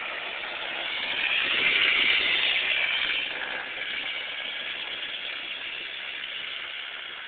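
Kid kart's small engine running under way, a steady buzz that grows louder as the kart passes close about two seconds in, then eases off as it moves away.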